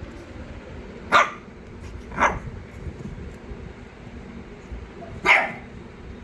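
Shih Tzu puppy barking three short times, the first two about a second apart and the third some three seconds later.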